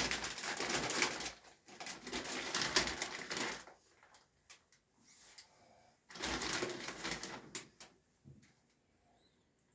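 Plastic packaging crinkling and rustling as it is handled, in two stretches: a longer one at the start and a shorter one past halfway, with light handling sounds between.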